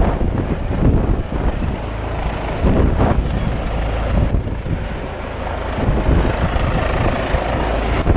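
Rescue helicopter hovering overhead: steady rotor and engine noise, with gusty wind buffeting the microphone.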